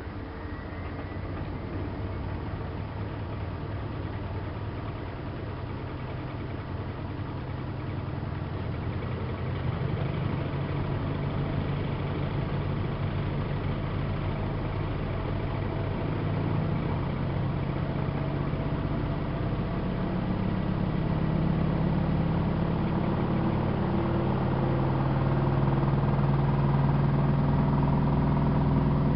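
Miele Softtronic W3657 washing machine going into a spin: the motor starts suddenly, then the drum speeds up in stages, a hum that rises in pitch and grows louder.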